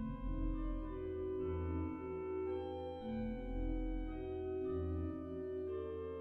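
Salisbury Cathedral pipe organ sample set played through Hauptwerk: slow sustained chords over a pedal bass line, the notes changing about once a second.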